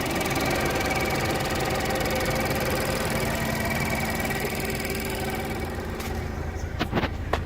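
Ford Focus ST engine running with a steady high-pitched whine of unknown cause. The whine and the higher noise drop away about six seconds in, and a few sharp clicks come near the end.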